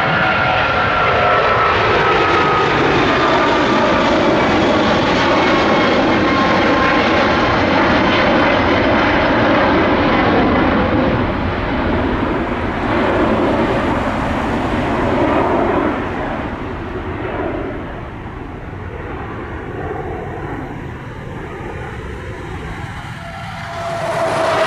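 Boeing 777's twin jet engines at takeoff power as the airliner climbs away, with a whining tone that falls in pitch over the first several seconds. The sound drops noticeably about two-thirds of the way through, then swells again near the end.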